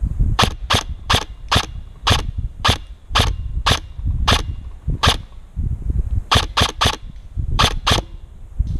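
Airsoft rifle shots: about fifteen sharp cracks, mostly about two a second, with a pause about five seconds in and then a quick burst of three. A low rumble of handling and wind noise lies underneath.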